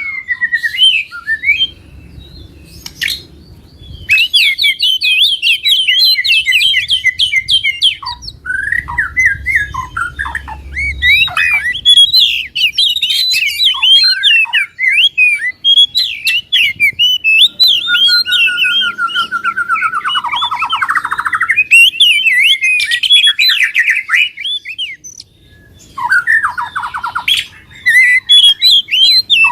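Songbirds singing in fast, aggressive bursts of chirps, trills and squawks, with phrases breaking off and starting again. Around two-thirds of the way through comes a long rattling trill that sweeps downward. This is a 'fighter' combination of bird calls, the kind used to provoke a quiet caged bird into singing.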